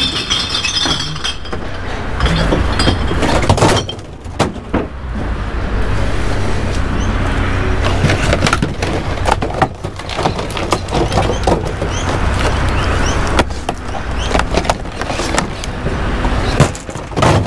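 Rigid clear plastic clamshell packaging crackling, clicking and clattering as it is handled and tossed, with many sharp snaps over a steady low rumble.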